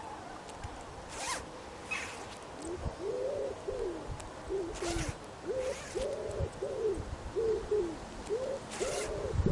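Short rasps and clicks from a hoodie's zip as the slider is worked at the bottom of the zip, about five separate strokes. A pigeon coos over and over in the background from about two and a half seconds in.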